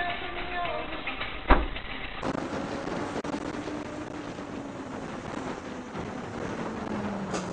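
A single sharp bang about a second and a half in, from the aftermath of a road crash. Then steady road and wind noise inside a moving car, with an engine hum that slowly falls in pitch.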